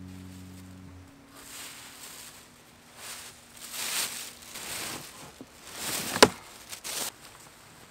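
Clear plastic packaging bag rustling and crinkling in irregular bursts as it is pulled open around an upholstered recliner section, with one sharp snap about six seconds in.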